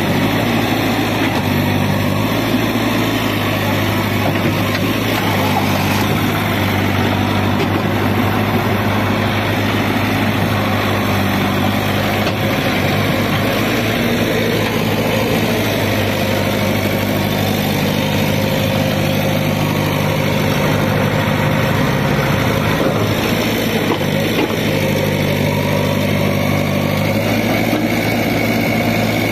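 Heavy diesel engine of a working machine running steadily, its speed stepping up and down a few times.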